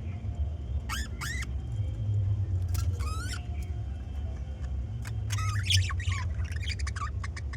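Budgerigars chirping in short, quick calls: two near the start, one around three seconds in, and a busy burst of chatter from about five to seven seconds, over a steady low rumble.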